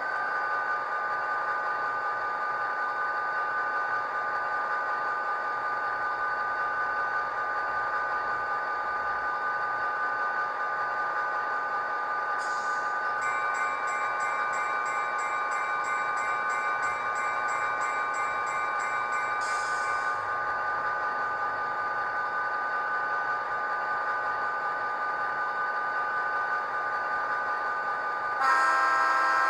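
ESU LokSound sound decoder in an HO scale SD45 model, playing an EMD 20-cylinder diesel running steadily through the model's small speaker. For several seconds in the middle a bell rings in a fast, even pattern. About a second before the end a loud horn chord starts.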